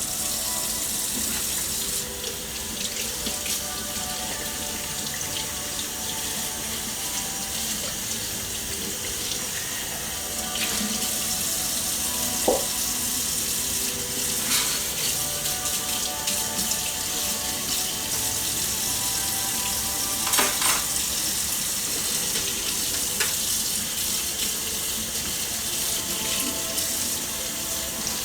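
Water running steadily, a continuous hiss with a few brief sharper splashes or clinks, over faint background music with held notes.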